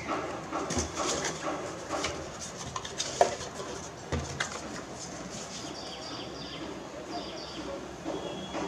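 Cardboard box opened by hand, its lid and insert clicking and rustling, followed by the paper manual rustling as it is lifted out. Faint short bird chirps come in during the second half.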